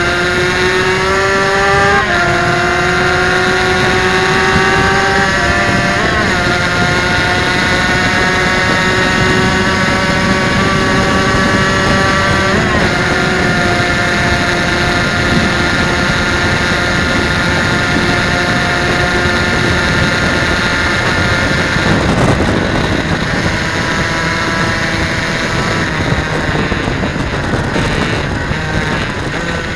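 Suzuki RGV250 two-stroke V-twin racing engine at full throttle, its pitch climbing through the gears with three upshifts in the first dozen seconds, each a quick drop in pitch, then holding high revs. Heavy wind rush on the onboard microphone runs underneath, and the revs begin to ease near the end.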